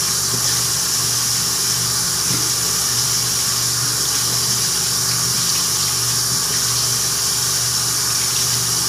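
Tap water running steadily into a bathroom sink, with a steady low hum beneath it.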